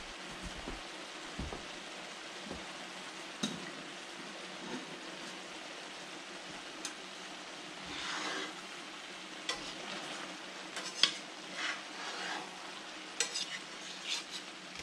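Chopped vegetables sizzling steadily in a cast-iron skillet. From about halfway on, a metal spatula scrapes and stirs through them, with several sharp clinks against the pan.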